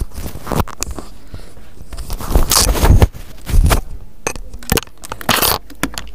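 Close handling noise: irregular knocks, scrapes and crackles, loudest in a cluster of heavy thumps between about two and four seconds in.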